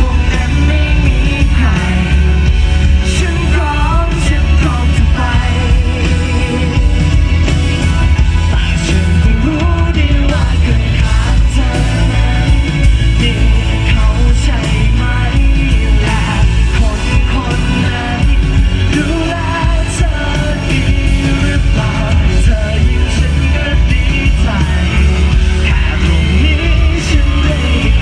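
Live rock band playing loudly, with sung vocals over heavy bass and drums.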